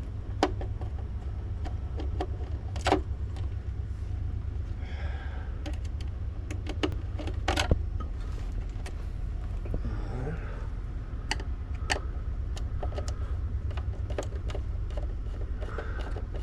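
Irregular small clicks and taps of a screwdriver and loose screws against the dashboard's plastic trim as screws are backed out, a few sharper clicks among them, over a steady low hum.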